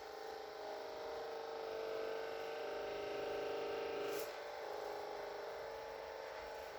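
A small electric motor humming steadily, louder for the first four seconds, with a short click about four seconds in, after which the hum goes on more quietly.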